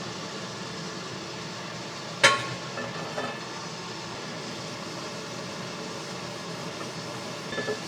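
Gas stove burner running under a blue carbon steel pan of heating oil, a steady hiss. A sharp, ringing metal clink comes a little over two seconds in, followed by a few light knocks.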